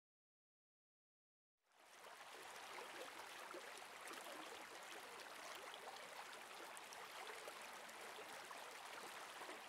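Dead silence for under two seconds, then a faint steady hiss of noise with light crackle.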